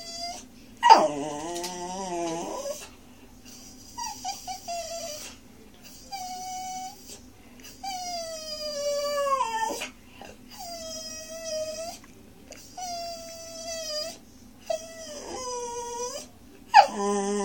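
Miniature schnauzer puppy whining and howling, begging for food: a run of about eight drawn-out, high cries with pauses between, several sliding down in pitch, the loudest about a second in and another near the end.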